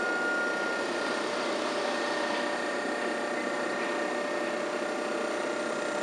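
Toden Arakawa Line 8500-series tram standing at the stop with its onboard equipment running: a steady mechanical whir with a steady high whine over it.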